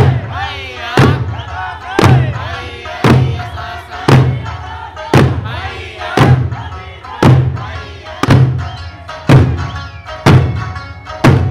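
Eisa drum dance: a troupe's hand-held drums struck together in unison about once a second, each stroke a deep thump, over singing.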